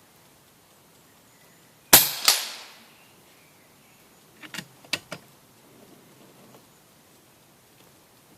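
FX Elite PCP air rifle firing one shot: a sharp crack, then about a third of a second later a second crack with a ringing tail as the pellet strikes the target at 50 metres. A few seconds later come several small metallic clicks as the action is cycled for the next shot.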